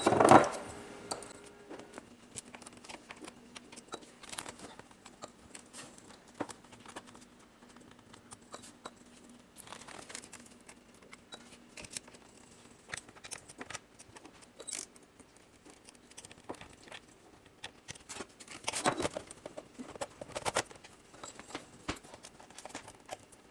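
A small Phillips screwdriver and screws making scattered light clicks and scrapes against a laptop's plastic bottom cover as the screws are driven back in. A louder run of clicks comes about nineteen seconds in.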